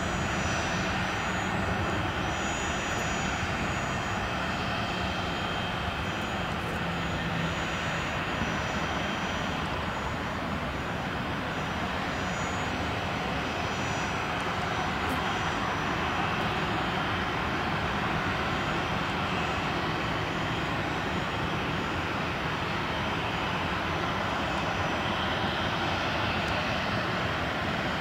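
Cessna Citation Latitude business jet's twin Pratt & Whitney Canada PW306D turbofans running steadily at low taxi power: an even rumble with a faint high whine.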